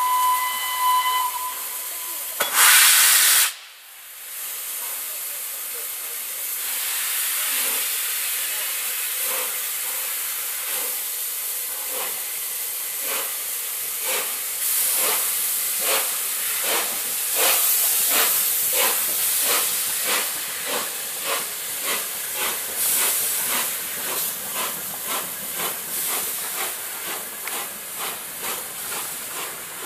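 Peppercorn A1 steam locomotive 60163 Tornado starting its train. A short whistle tone sounds first, then a loud blast of steam about two and a half seconds in. After that come the three-cylinder exhaust beats, over a steady hiss of steam, quickening from about one a second to two or three a second as it gathers speed.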